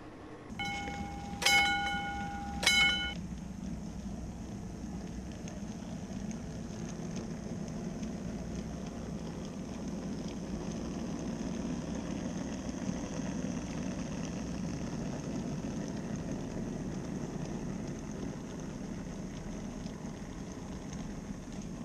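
N-scale model trains running on the layout's track: a steady low rumble of wheels and small electric motors with a faint high whine. In the first three seconds a pitched tone with two sharp, loud peaks sounds over it.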